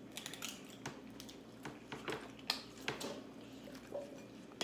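Eating sounds at a seafood boil: crab legs being cracked and picked apart by hand and the meat chewed, a scattered run of sharp little cracks and clicks with wet squishing.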